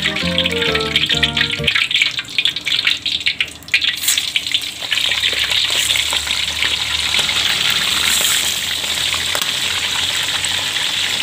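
Par-boiled chicken breasts deep-frying in hot oil in a wok. Sparse crackling of the oil gives way about four seconds in to a loud, steady sizzle as the pieces go in.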